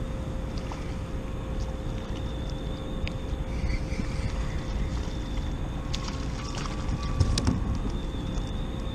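Wind rumbling on the camera microphone over a steady hum, with a few short sharp clicks and knocks about six to seven and a half seconds in, while a hooked fish is played and reached for from a kayak.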